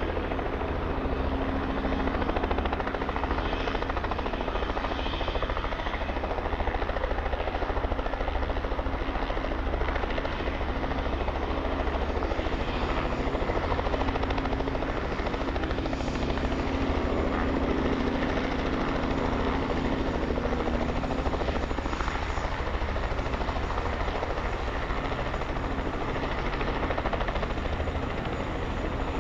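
Robinson R44 helicopter in a low hover, its rotor beating and its six-cylinder Lycoming piston engine running steadily. A steady hum under the rotor noise drops away about twenty seconds in.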